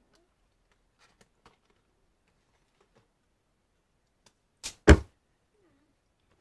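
Two sharp knocks close to the microphone, about a quarter second apart, the second the louder. A few faint clicks come before them.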